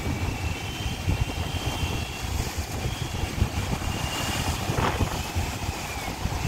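Low buffeting rumble of wind on the microphone and surf washing over the rocks, with a thin high whine from the fishing reel's drag coming and going as a big fish, likely a giant trevally, strips line off against it. A brief splash sounds about five seconds in.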